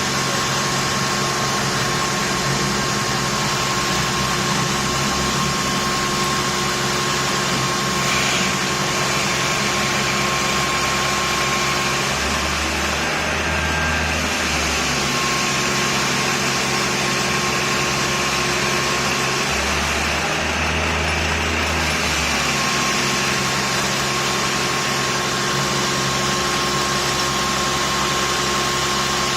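Construction machinery running continuously: a steady mechanical noise with a constant whine over it, and a deeper low rumble that swells twice, about twelve seconds in and again about twenty seconds in.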